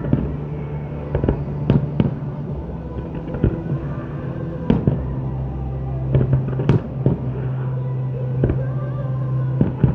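Aerial fireworks bursting in a display: a string of sharp bangs and crackles at uneven intervals, the strongest about two seconds in, near the middle and near the end, over a steady low hum.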